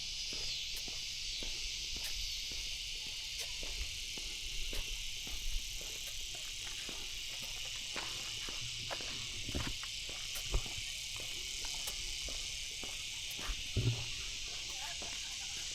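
A steady, high-pitched chorus of insects buzzing in summer vegetation, with a few soft low thumps in the middle and near the end.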